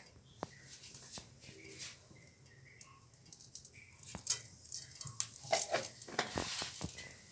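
Hot oil in a frying pan ticking faintly, then spices tipped in about four seconds in set off a hissing sizzle with scattered crackles and pops.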